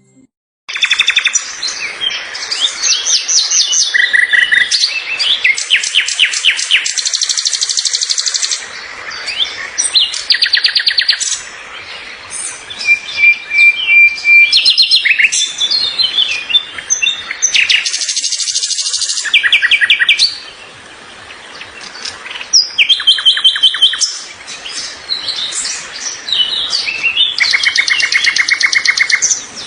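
Songbird song: varied phrases of rapid trills and repeated chirps, one phrase after another with short pauses, starting after a brief silence.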